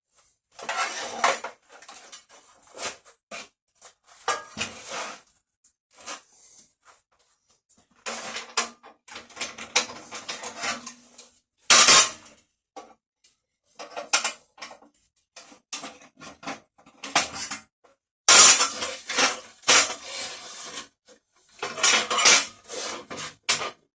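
Pieces of cut steel plate being handled, clinking and scraping against each other and a hard surface in irregular clusters, with one sharp knock about halfway through.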